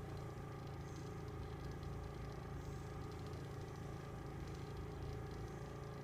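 A steady low mechanical hum, unchanging throughout, with faint light rustling above it.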